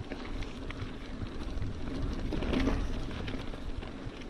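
Wind buffeting the camera microphone while a Specialized Stumpjumper mountain bike rolls over dirt and gravel, its tyres rumbling, with small clicks and rattles from the bike. The rumble swells louder about halfway through.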